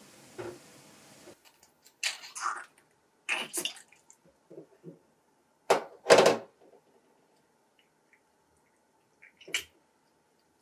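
Briefly at first, the steady hiss of water boiling in a pan, which cuts off. Then a spoon and cooked snail shells click, knock and scrape in irregular handfuls over a stainless steel sink as the snail meat is scooped out of the shells; the loudest knocks come about six seconds in.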